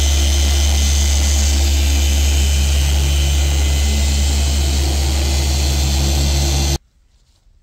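Dual-action car polisher running steadily with a foam pad on black car paint: a loud, even motor drone with a deep hum. It cuts off abruptly near the end, leaving only faint rustles.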